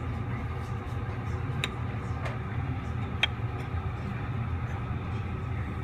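Steady low background hum of a room, with two light clicks about a second and a half apart as wooden chopsticks tap the small ceramic side-dish bowls.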